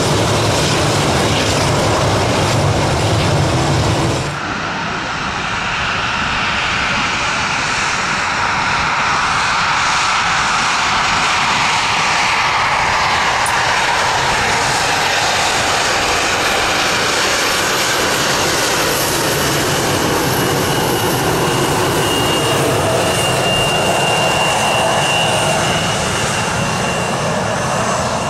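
Airbus A340 jet engines rumbling low as the four-engined airliner taxis; about four seconds in this cuts to a Bombardier CRJ regional jet taxiing, its rear-mounted turbofans giving a steady whine, with a thin high tone over it later on.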